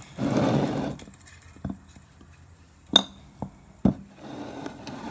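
Tabletop clearing noises: a short scrape, then several sharp knocks as a jar with a metal lid and a ceramic plate are picked up and set down on the table. The loudest knock, about three seconds in, is a ringing clink.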